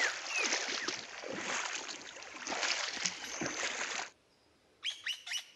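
Feet wading through a knee-deep river, water sloshing and splashing with each step. The splashing cuts off abruptly about four seconds in, and a bird then gives several short, falling chirps.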